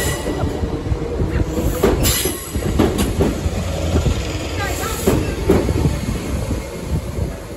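Southern Class 313 electric multiple unit moving past close by: a loud rumble of wheels on rail, with several sharp clacks as the wheels cross rail joints.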